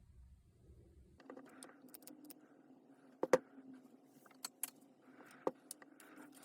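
Scattered clicks and light metallic clinks of small parts and hand tools being handled, the loudest a little over three seconds in.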